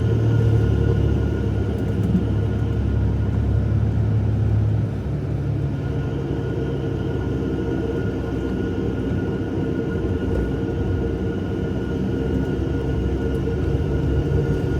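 Diesel Jeep driving along, a steady low engine and road drone with a faint steady whine above it; the drone drops a little in level about five seconds in.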